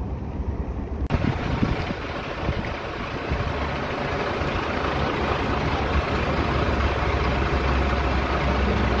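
A vehicle engine idling: a low steady hum under a steady hiss of noise, which comes in abruptly about a second in.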